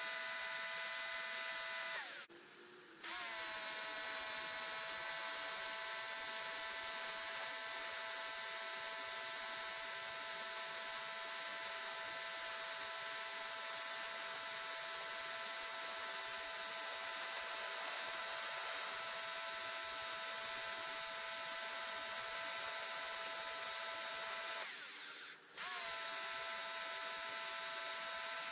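Portland electric pressure washer running steadily, its motor humming under the hiss of the spray. It cuts out briefly twice, the pitch sagging as the motor stops when the trigger is let go, then starts up again.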